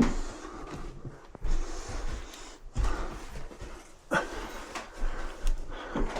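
A series of irregular knocks and thumps, about five over several seconds, with rustling and handling noise between them.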